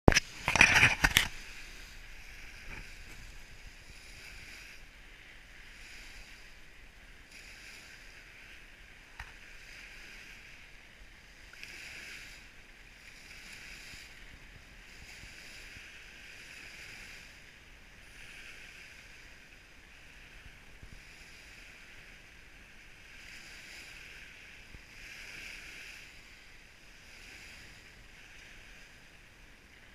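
Small waves lapping and washing over a pebble beach, a hiss that swells and fades every one and a half to two seconds. A loud, brief burst of noise in the first second.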